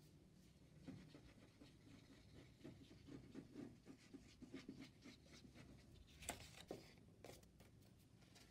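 Faint scratching of a small plastic glue bottle's nozzle drawn along a cardstock tab, with a couple of sharper rustles of card near the end.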